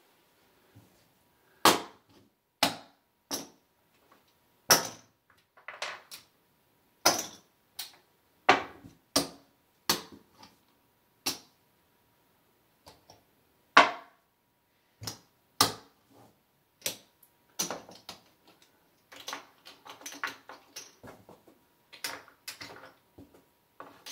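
Casino chips clicking and clacking as they are picked up, stacked and set down on a craps table, in irregular single clacks with a quicker run of small clicks about two-thirds of the way through.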